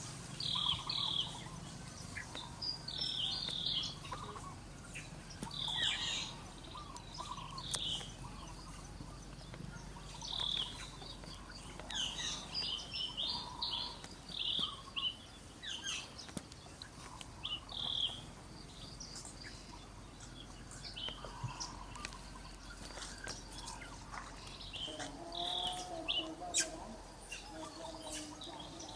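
Birds chirping: many short, high calls repeated in scattered clusters, over a faint low background hum.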